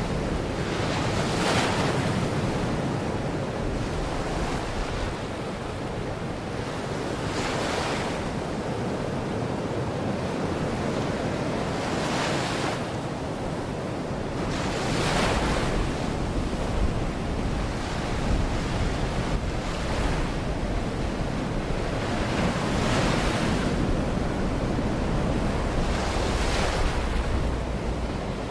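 Baltic Sea waves washing onto the shore: a steady rush of surf with a wave breaking and swelling louder about every three to four seconds.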